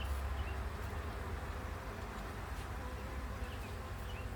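Honeybees buzzing steadily around an open hive, a continuous hum with a few faint clicks.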